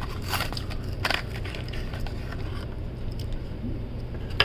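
Plastic blister packaging crackling as a Matchbox toy is handled and opened, with a few sharp clicks, the loudest at the very end, over a steady low hum.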